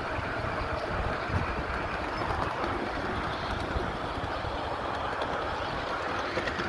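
Ride-on 1/8-scale miniature train rolling along its track: a steady rumble of the wheels on the rails, with a few light clicks.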